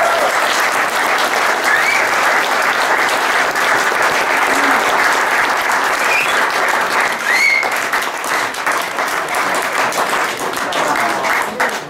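A roomful of people applauding steadily, with a few voices calling out over the clapping, which thins out near the end.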